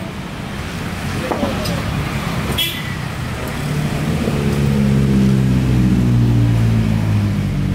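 Street traffic: a motor vehicle's engine grows louder from about halfway through and drops in pitch near the end as it goes by. A short sharp click comes about two and a half seconds in.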